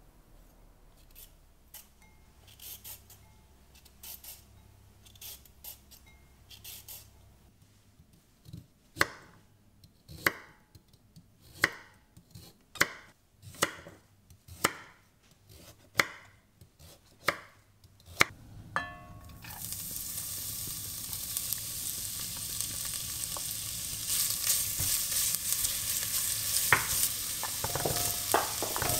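Kitchen knife chopping carrots on a cutting board, about eight sharp chops a little over a second apart. Then oil sizzling in a pot, growing louder as carrot pieces go in, with a few clacks near the end.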